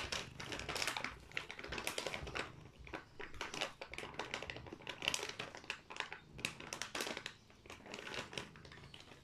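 Plastic pouch of Felix cat treats crinkling and crackling as it is handled, in quick irregular rustles and clicks.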